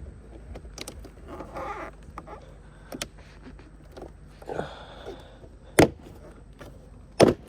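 BMW F10 door trim panel being pried off, with scattered plastic clicks and rustling, then two sharp snaps about a second and a half apart near the end as its retaining clips pop loose.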